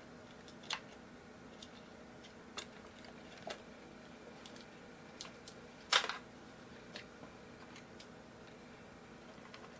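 Scattered light clicks and taps of small tools and parts being handled while the guitar's pickup wiring is disconnected, with one sharper click about six seconds in.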